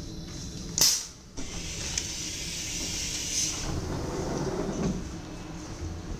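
Door of a DD-AR double-deck train carriage opening after its open button is pressed: a sharp burst of air about a second in, a high hiss for a couple of seconds, then a lower rumble as the door slides open.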